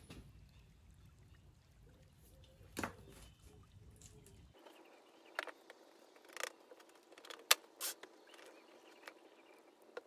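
Faint handling sounds of sand-casting mould preparation: a few light taps and clicks, the sharpest about seven and a half seconds in, as a 3D-printed plastic pattern is set on the moulding board and dusted with talc.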